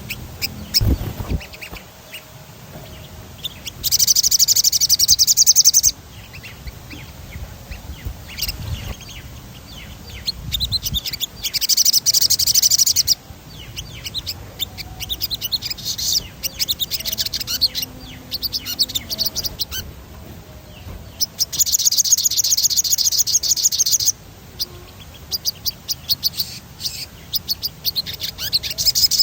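A sogon songbird singing in long, fast rolling trills, three of them in bursts of about two to three seconds each, with scattered short high chirps in between.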